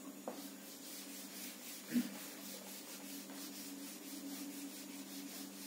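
A felt eraser pad wiping marker off a whiteboard, rubbing back and forth in quick, even strokes. A single brief knock about two seconds in is the loudest moment.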